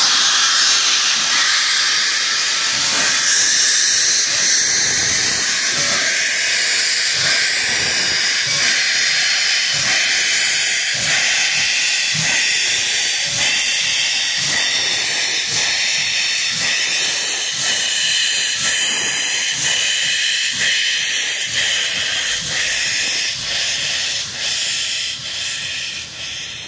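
Reading & Northern #425, a Baldwin 4-6-2 Pacific steam locomotive, hissing loudly as it vents steam, with regular knocks under the hiss. The sound fades over the last few seconds.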